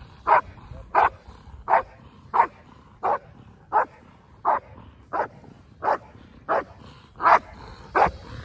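A dog barking in a steady run of single barks, about one every 0.7 seconds, a dozen in all: a protection dog's guard bark at a decoy in a bite suit standing in front of it.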